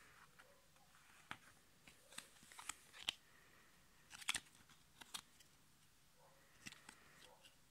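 Play-Time Goal Stars football trading card handled by hand: picked up from among other cards and turned over, giving a string of faint, sharp clicks and snaps of the stiff card, loudest a little past the middle.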